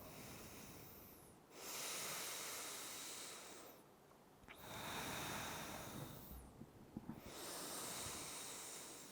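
A person breathing slowly and audibly through the nose: three long breaths of about two seconds each, with short pauses between.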